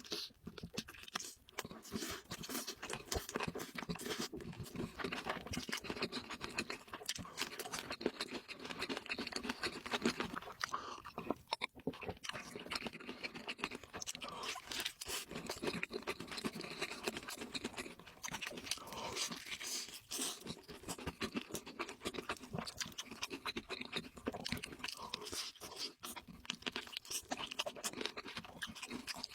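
Close-miked eating: a person chewing and crunching food with their mouth, a dense run of wet crackling clicks.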